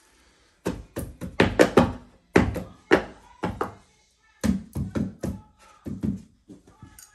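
Carpet edge being worked into place along a baseboard with hand tools: a quick run of sharp knocks and taps in bursts, several a second, pausing briefly about four seconds in.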